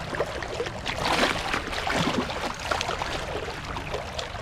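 Water splashing as a steelhead trout struggles at the surface of a shallow river, over the steady flow of the stream. The splashing is loudest about a second in.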